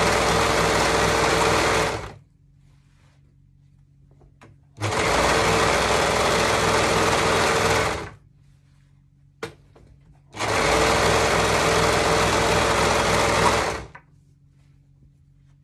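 Noisy overlocker (serger) running with its cutter engaged, stitching and trimming a seam through two layers of curtain interlining. It runs in three even bursts of about three seconds each, stopping and starting again in between.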